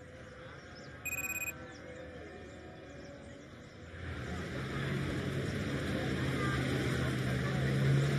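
A short high beep about a second in, then a vehicle engine drone that builds from about four seconds in and grows steadily louder.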